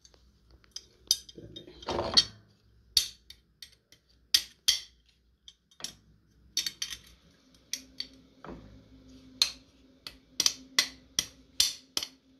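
Small metal tools and parts clicking and clinking, irregular sharp taps with a brief cluster about two seconds in, as a small rivet is worked into a VW Beetle's quarter-window latch.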